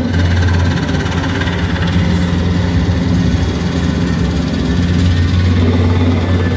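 Light helicopter's engine and rotors running in a steady low drone as it hovers over the arena.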